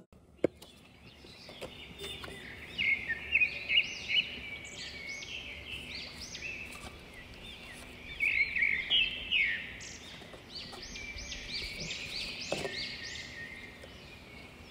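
Small birds chirping busily: many short, arching chirps that overlap, starting about two seconds in, over a faint steady background hiss.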